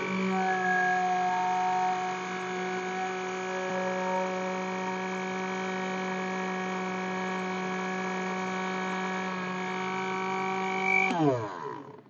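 Electric mixer grinder's motor running steadily at full speed, grinding chopped bitter gourd with water in its small jar. About eleven seconds in it is switched off and winds down with a falling pitch to a stop.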